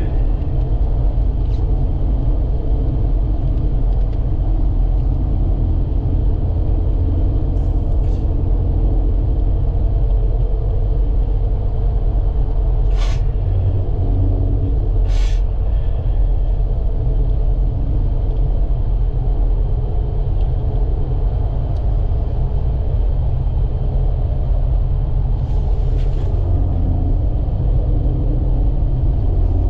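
Steady low rumble of a vehicle driving, heard from inside the cabin: engine and tyre noise. About halfway through, two sharp clicks come roughly two seconds apart.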